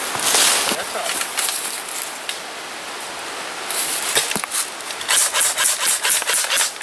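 Close rustling and scuffing of clothing and gear against the microphone, with a few sharp clicks early on. It becomes busier and quicker in the second half, about four or five scuffs a second.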